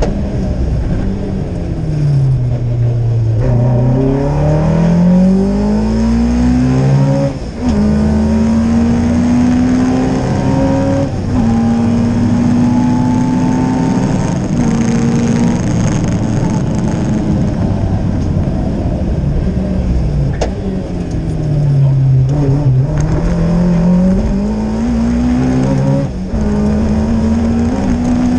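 Rally car engine heard from inside the cockpit, driven hard: twice the revs fall as it slows, then climb again as it accelerates, with short breaks in the note at each upshift, about a third of the way in and again near the end.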